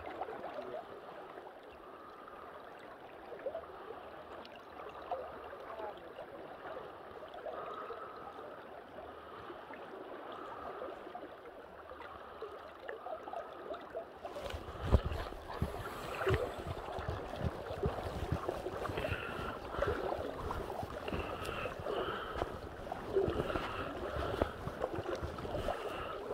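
River water gurgling and trickling around the boat. About halfway through, a louder gusty rumble with irregular low thumps sets in, like wind buffeting the microphone.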